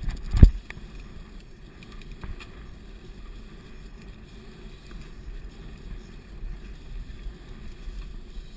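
Cross-country mountain bike rolling along a dirt forest singletrack: a steady low rumble of the tyres and ride, with one loud knock about half a second in and a few smaller clicks after it.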